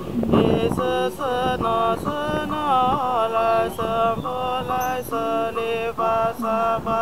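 A Buddhist nun chanting a mantra, one voice in a quick, even run of syllables, about four a second, held on a few steady pitches.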